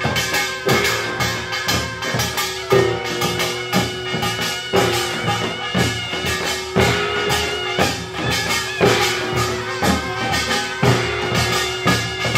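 Samulnori percussion ensemble playing a fast, dense rhythm on buk barrel drums, janggu hourglass drums and kkwaenggwari small gong, with a heavier stroke about every two seconds that rings on, like a jing gong.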